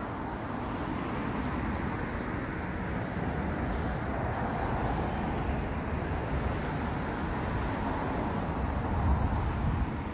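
Steady street traffic noise, with a low rumble of passing vehicles that swells slightly now and then.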